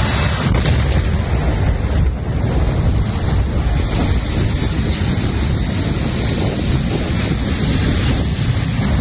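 Steady loud rushing rumble, heaviest in the low end and without any distinct strikes or tones, like wind buffeting the microphone.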